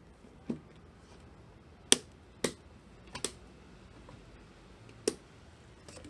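Six sharp clicks and knocks of small hard objects being handled and set down on a wooden workbench, with a quick double knock about three seconds in; the loudest comes about two seconds in.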